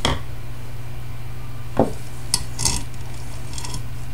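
Several light metallic clicks and knocks as the opened flight recorder's metal chassis is handled and turned over in the hands.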